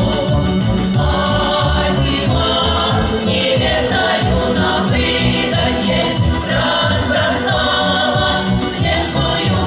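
Russian folk choir singing with instrumental accompaniment that keeps a steady low beat.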